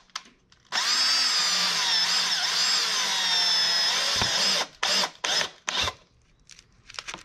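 Electric drill running into a small wooden block for about four seconds, its whine wavering in pitch under load, then four short trigger pulls in quick succession.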